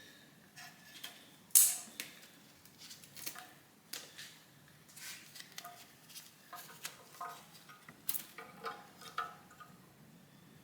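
Irregular metallic clinks and clanks of hand tools and engine parts as the oil pan is taken off the engine, with one sharp clank about one and a half seconds in and brief metallic ringing in the later clanks.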